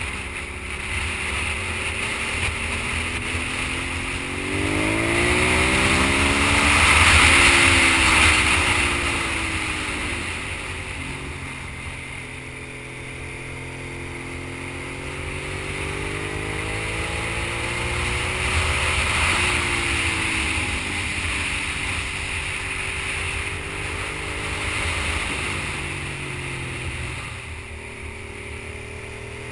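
Sport motorcycle engine heard from the rider's seat, its revs rising and falling through the bends: a climb to the loudest peak about seven seconds in, then a drop, then a second rise and fall later on. Wind rushes steadily over the microphone.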